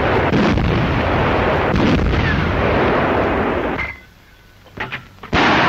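Artillery fire: a continuous heavy rumble of gunfire for about four seconds, then a short lull broken by a couple of sharp cracks, then another loud blast just before the end.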